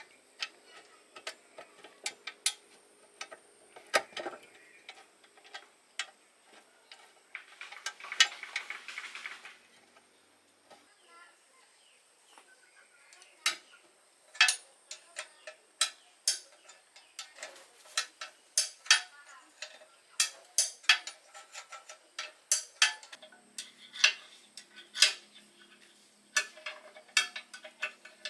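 Metal tools and parts clinking and tapping in irregular sharp clicks, with a brief hiss about eight seconds in.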